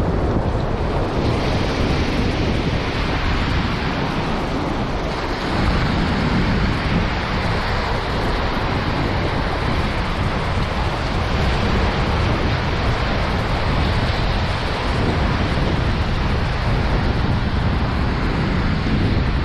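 Small surf breaking and washing over sand in the shallows, with steady wind buffeting the microphone.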